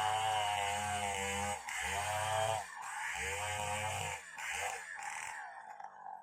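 Large two-stroke chainsaw, a Stihl 070, running hard in a cut, its pitch wavering under load in bursts of a second or two with short dips between, dying away near the end.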